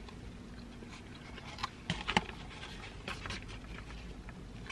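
A person quietly chewing a mouthful of crispy fried chicken sandwich, with a few sharp little clicks about two seconds in.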